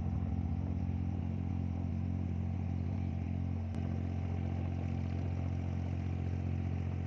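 Diesel engine of a wooden abra water taxi running steadily under way, a constant low drone heard from on board.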